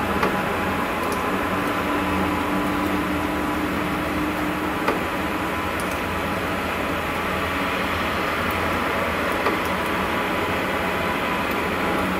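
Unexplained steady low drone with hum and hiss, a held higher tone sounding for a few seconds about a second and a half in. Its source is unknown: neither the recorder nor other listeners found what made it.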